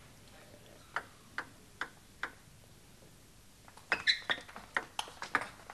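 Table tennis ball tapped four times, evenly spaced a little under half a second apart, in the lead-up to a serve. After a short pause a fast rally starts, with quick irregular clicks of the ball off bats and table.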